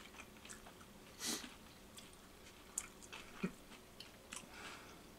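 Faint chewing and mouth sounds of people eating fried chicken, with small clicks scattered throughout and a slightly louder one about a second in.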